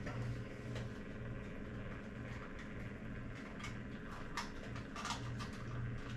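Faint handling noise of a camcorder power supply being plugged in: a few small plastic clicks and rustles, the clearest about four and five seconds in, over a steady low hum.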